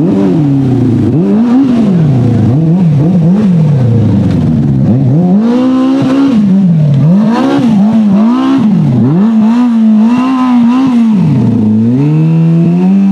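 A Polaris RZR side-by-side running a swapped-in Yamaha Apex snowmobile four-cylinder engine, revving up and down over and over as it drives. It gives several quick blips early on and longer climbs and drops through the middle, then holds a steady high rev near the end.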